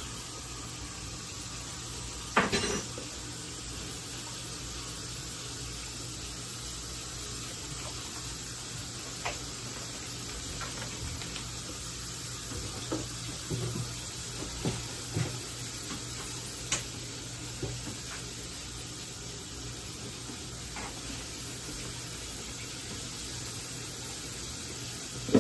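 Kitchen handling sounds as a raw beef brisket is put into a crock pot. There is a sharp knock about two seconds in, then scattered light knocks and clatter around the middle, over a steady hiss.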